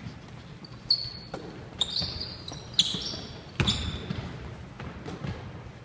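Basketball bouncing on a hardwood gym floor, a handful of irregular thuds, with short high sneaker squeaks from players cutting on the court in the first few seconds.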